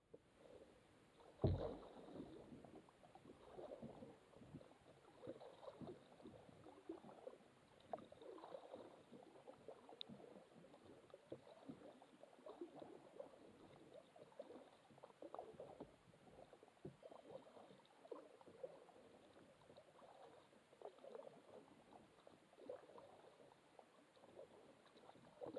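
Faint, irregular water lapping and trickling from a small boat being paddled along, with a single thump about a second and a half in.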